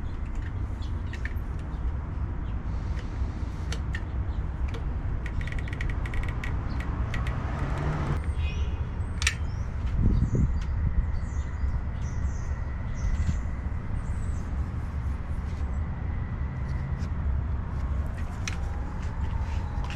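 Steady low rumble of outdoor background noise, with scattered small clicks and a few faint high chirps in the middle.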